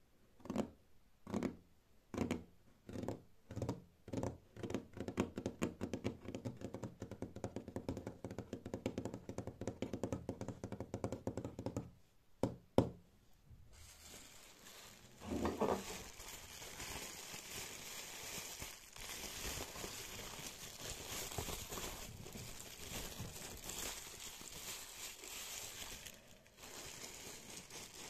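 Fingertips tapping on a tabletop, slow separate taps at first that quicken into rapid drumming. Then a couple of sharp clicks, followed by steady crinkly rustling that runs on, with bubble wrap being handled near the end.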